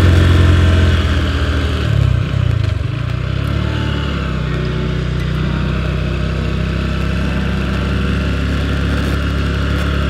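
Honda Verza 150's single-cylinder engine running as the motorcycle rides along. The engine note eases about a second in, wavers briefly around two seconds, then holds steady.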